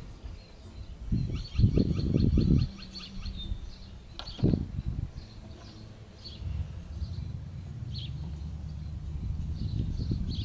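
Small birds chirping, with a rapid high trill of about ten notes a second early on and scattered short chirps afterwards. Bursts of low rumbling, loudest around two seconds in and again briefly about four and a half seconds in, then a steadier low rumble.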